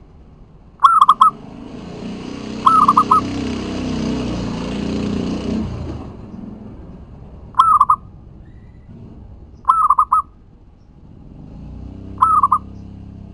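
Zebra dove (local perkutut) cooing: five short, rapid trilled coo phrases a few seconds apart. A rushing noise swells under the first calls and stops about six seconds in.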